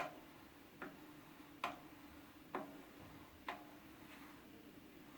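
Mountain bike front wheel turning with the Shimano XT disc brake lightly applied: faint sharp ticks just under once a second over a low steady hum, and no brake squeal, showing that the squeal is gone after the pads were sanded and the discs cleaned.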